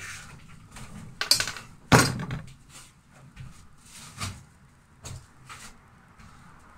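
Knocks and clatter of hard objects being handled and set down, two loud ones about one and a half and two seconds in, then a few lighter knocks.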